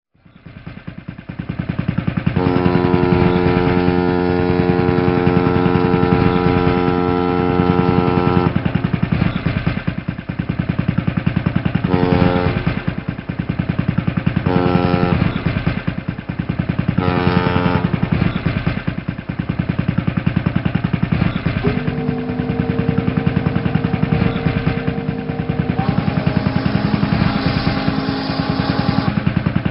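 Boat engine running with a fast, even throb, while a boat horn sounds: one long blast of about six seconds, three short blasts a few seconds apart, then a longer, lower-pitched horn note that shifts pitch partway through.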